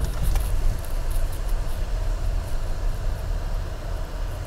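Road noise inside a moving car's cabin as it drives through a concrete road tunnel: a steady low rumble of tyres and engine.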